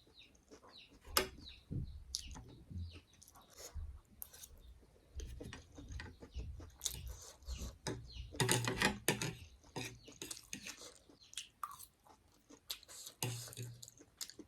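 A person chewing food close to the microphone: a run of wet mouth clicks and crunches, with denser, louder chewing about eight seconds in and again near the end.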